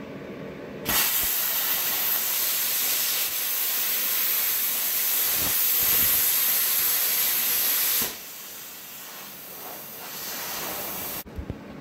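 Everlast PowerPlasma 82i plasma cutter piercing 3/4-inch steel plate at 80 amps: a loud steady hiss of the arc and air starts about a second in and runs about seven seconds until the pierce is through. After the arc goes out, a quieter hiss of air carries on for about three seconds more, then cuts off.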